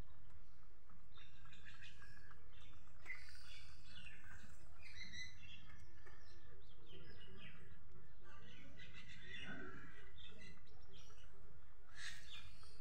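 Small birds chirping on and off, over a steady low background noise.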